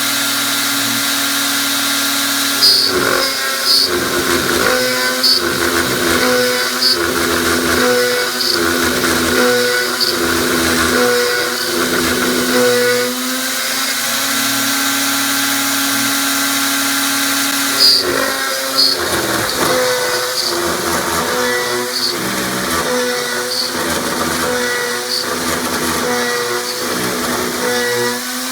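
RotoZip rotary tool turning at reduced speed as the spindle of a DIY CNC router, running with a steady whine. In two long stretches the bit cuts aluminium, adding a rough grinding chatter that swells and eases about once a second as the axes move back and forth.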